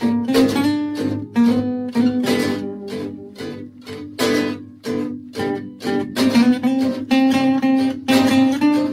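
Music: an acoustic guitar playing chords, strummed and picked in a steady rhythm.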